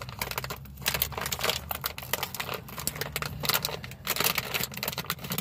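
Plastic snack bag of Calbee Shrimp Chips crinkling and crackling in the hands as it is twisted and pulled at, a struggle to tear it open.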